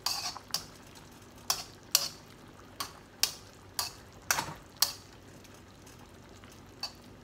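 Metal tongs clinking against a wok as shrimp are tossed, sharp clicks about twice a second that stop around five seconds in, with one more near the end. Butter sizzles faintly underneath.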